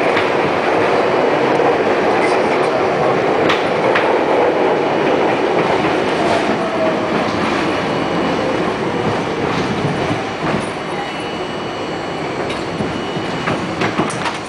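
Wheel and track noise inside an R42 subway car, with a second train alongside at first. It is loud and dense, then eases off about ten seconds in as the train slows at the station. After that come scattered clicks and clanks of the wheels over the rails.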